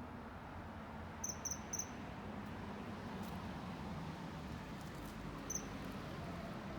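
Common kingfisher calling: a quick run of three short, high, shrill peeps about a second in, then a single peep near the end, over steady low background noise.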